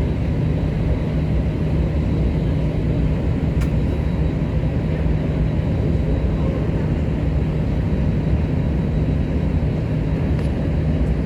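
Steady engine and cabin air noise inside an Airbus A321 at low taxi power before takeoff, with a steady low hum.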